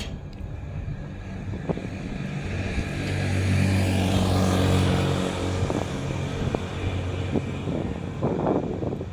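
A motor vehicle passes by. Its engine hum and tyre noise grow to a peak about four to five seconds in, then fade away.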